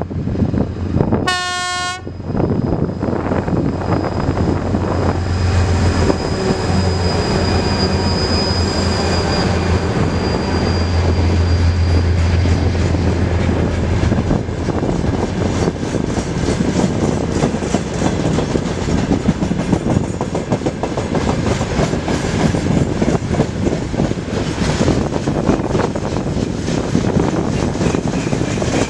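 Freight train passing close by. The ST40s twin-unit diesel locomotive gives a short horn blast about a second in, then its engines drone steadily as it goes past. A long string of open freight wagons follows, rumbling and clattering over the rail joints.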